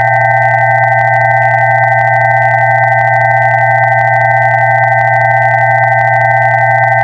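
Steady electronically generated pure tones sounding together: a low hum beneath a cluster of higher tones and a thin high whistle, held without change.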